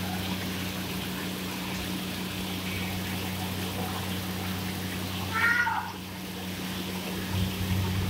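Steady low hum with water trickling from a rock-wall waterfall into a fish pond. About five and a half seconds in, one short high-pitched vocal cry.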